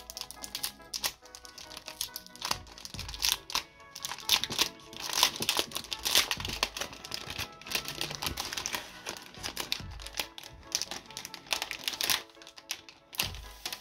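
Background music over a series of sharp clicks and crinkling as the keyboard and its packaging are handled during unboxing.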